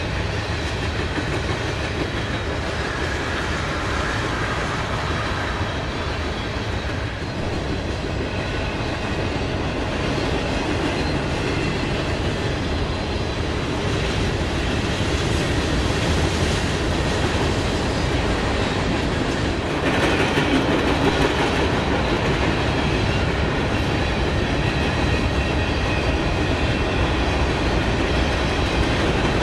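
Freight train cars rolling past: a steady rumble and clatter of steel wheels on rail, louder from about two-thirds of the way in.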